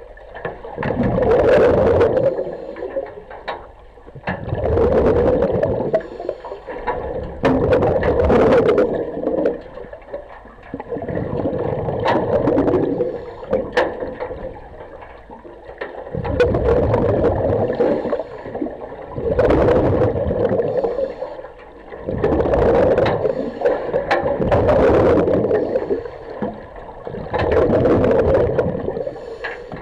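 Scuba regulator breathing underwater: a gurgling rush of exhaled bubbles that swells and fades about every three seconds, breath after breath.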